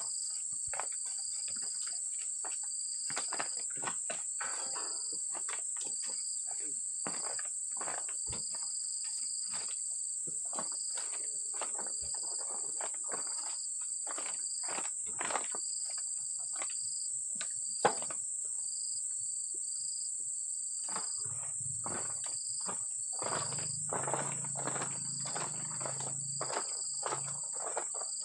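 Tropical insects buzzing steadily at a high pitch, with a second insect call pulsing about once a second. Over it come scattered light knocks and rustles from oil palm fruit bunches and loose fruit being handled.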